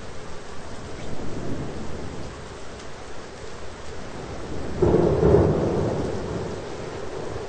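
Thunderstorm: steady rain with a clap of thunder that breaks suddenly about five seconds in, then rumbles and fades away over a couple of seconds.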